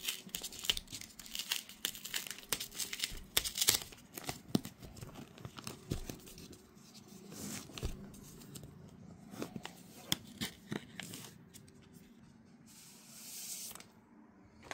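Protective wrap being peeled off a new Samsung Galaxy Tab S10 Ultra tablet: crackling and crinkling rustles, loudest in the first few seconds and then sporadic, with a longer hiss near the end.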